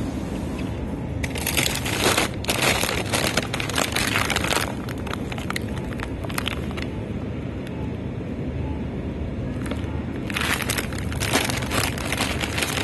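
Plastic bags of frozen mashed potatoes crinkling and rustling as they are picked up and handled, in two spells of a few seconds, about a second in and again near the end, over a steady low background hum.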